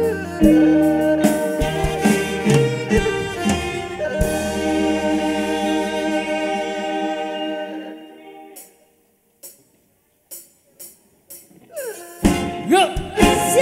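A live Isan folk band (electric guitars, keyboards and drum kit) playing, then holding a long final chord that dies away. After a few seconds of near quiet with a few scattered clicks, the band starts again near the end with sliding notes and drums.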